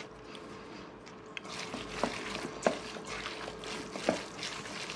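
Egg salad being mixed by hand in a stainless steel bowl: soft, wet stirring and squishing that starts about a second and a half in, with a few light knocks.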